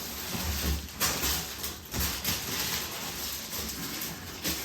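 Rustling and a few dull knocks from chair parts and their packaging being handled and unpacked.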